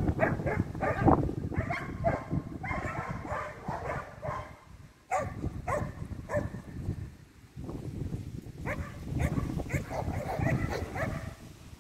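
Repeated short animal calls in clusters, with brief pauses.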